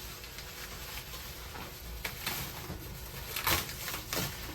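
Packaging rustling and crinkling as an item is pulled out of a well-packed box, with a few short, sharper crinkles in the second half, the loudest about three and a half seconds in.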